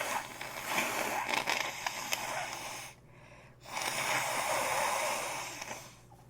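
A congested nose being cleared: two long, noisy nasal passes of air, about three and two and a half seconds long with a short pause between, with a wet crackle of mucus through them.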